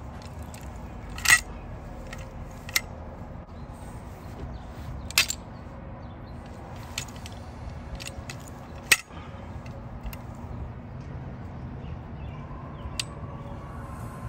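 Small geodes cracking in a chain-type soil pipe cutter: a series of sharp snaps and metallic clicks from the stones breaking and the roller chain and handles clinking. The two loudest cracks come about a second in and about nine seconds in.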